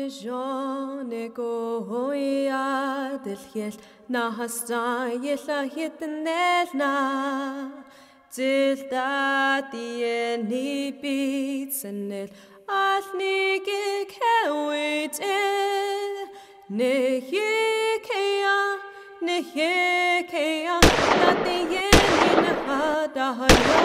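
A single voice singing an unaccompanied song, with a wavering vibrato on held notes. Near the end, three loud sharp bangs cut across the singing.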